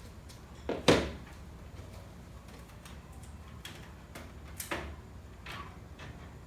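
A few short knocks over a low steady background: a sharp one about a second in, another weaker one a little past the middle, and a softer one soon after.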